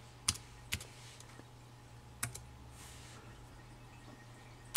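A few scattered keystrokes on the Jupiter Ace's keyboard as a command is typed, short clicks at irregular intervals over a faint steady low hum.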